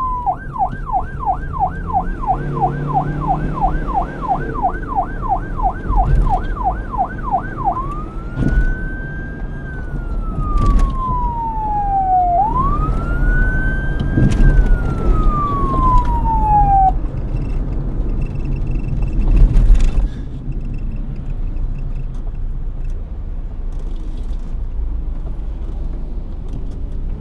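Police car siren: a fast yelp sweeping up and down about three times a second for nearly eight seconds, then two slow wails that rise and fall, cutting off about seventeen seconds in. A low vehicle rumble runs under it and carries on after, with a few knocks, the loudest about twenty seconds in.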